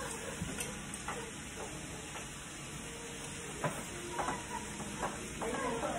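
Food sizzling in a frying pan on the stove while it is stirred, with scattered light taps of the utensil against the pan.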